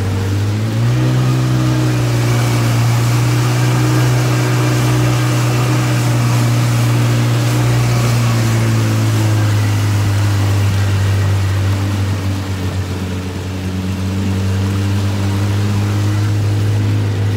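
Jet ski engine running under way. It picks up a little about a second in, holds, and eases back around eight to ten seconds in, over a steady rush of water and spray.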